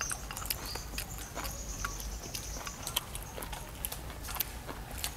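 Scattered light clicks and taps of chopsticks and bowls during a meal, irregular and unevenly spaced, with faint high chirping in the background near the start.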